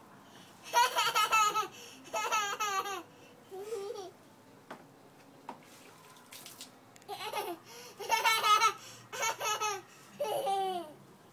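A toddler laughing and squealing in short, high-pitched bursts, in two runs with a lull of a few seconds between them.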